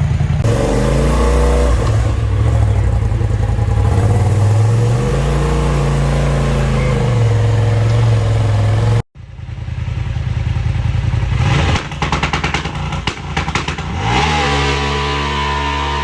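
Side-by-side UTV engine revving up and down, its pitch rising and falling several times. About nine seconds in there is a sudden cut, then the engine runs and revs again, with a rapid clatter partway through before it settles to a steady note.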